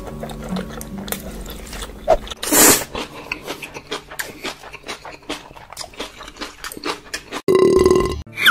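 ASMR eating sounds of fried rice being chewed: close, wet chewing and smacking with many small crisp clicks, and a louder noisy rush about two and a half seconds in. Near the end comes a loud, steady buzzing tone lasting about a second.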